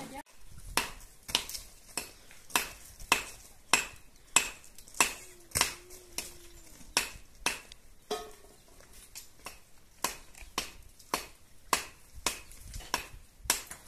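A steady series of sharp knocks or strikes, a little under two a second.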